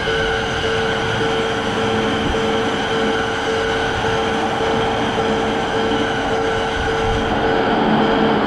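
Japanese railroad crossing warning bell ringing in a steady, even repetition of about two dings a second, over the rumble of an electric train running past the crossing that grows a little louder near the end.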